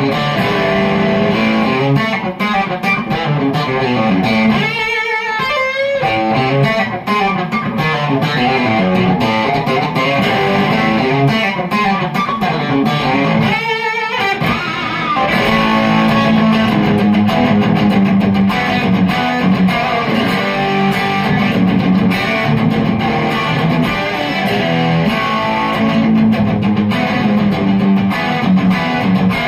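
Reverend T-style electric guitar played chicken-pickin' style through a Koch Amps "The Greg Jr" prototype amplifier: a continuous run of snappy picked country licks. Twice, about five and fourteen seconds in, a held note wavers widely in pitch, and the playing grows fuller from about sixteen seconds on.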